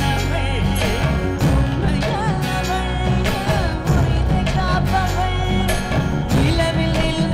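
Indian devotional music: a sung melody with ornamented, wavering pitch over instrumental accompaniment and a regular drum beat.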